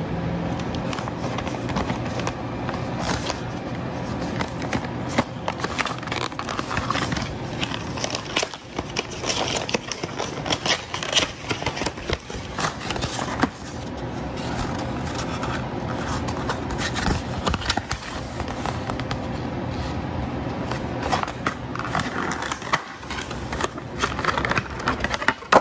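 Cardboard box and clear plastic packaging of a refrigerator water filter being handled and opened: irregular scraping, crackling and clicking.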